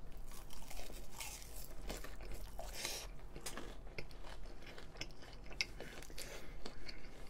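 Close-up chewing of a mouthful of kimchi fried rice, with small irregular wet clicks and crunches.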